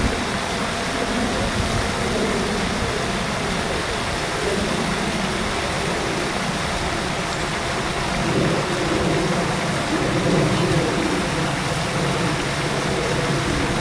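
Steady rushing noise with an uneven low rumble, a little louder for a few seconds past the middle.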